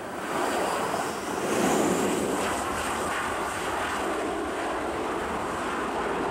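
Jet engines of a Boeing 737-700 airliner, its CFM56-7B turbofans, running loud as the plane rolls past on its landing roll. The noise is a dense rush with a faint high whine rising in the first second and a half, swelling over the first two seconds and then holding steady.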